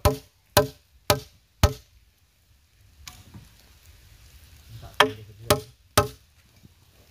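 Sharp blows struck on timber with a hand tool, each with a short ring: four at about two a second, a pause of about three seconds, then three more at the same pace.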